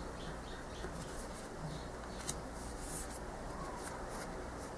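Faint rustling and light ticks of oracle cards being handled and slid off the deck, over a steady low hum.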